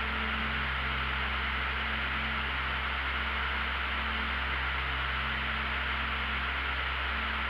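Steady in-flight cockpit noise of a light aircraft, an even hiss of engine and airflow, under a low sustained chord of ambient music.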